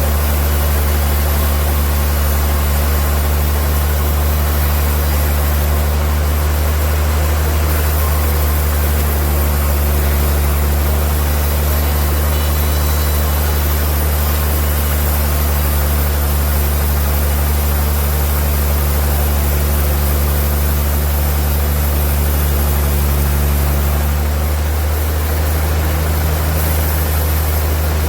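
Sawmill machinery's engine running steadily with a deep, constant hum under a wash of mechanical noise, its pitch shifting slightly near the end.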